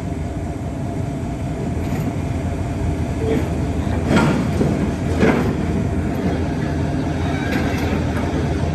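Diesel engine of heavy construction machinery running steadily, with a few sharp knocks, the loudest about four and five seconds in.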